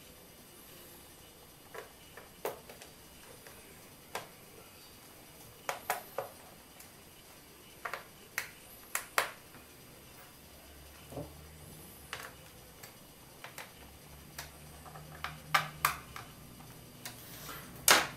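Irregular small sharp clicks and taps of a small screwdriver and screws against a laptop's plastic base as its screws are driven back in. A louder tap near the end as the screwdriver is set down on the desk.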